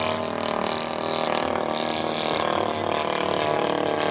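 Engine of a radio-controlled scale model airplane running steadily in flight, a continuous buzzing drone.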